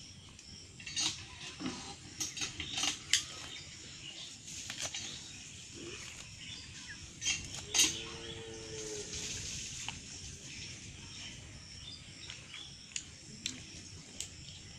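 A slaughtered chicken being plucked by hand: scattered sharp rips and crackles as the feathers are pulled out. A short animal call comes about eight seconds in.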